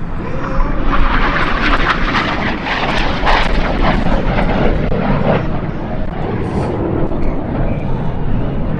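Jet noise from Red Arrows BAE Hawk T1 jets flying a display pass, with Adour turbofan engines. It swells about a second in and falls away after about five seconds.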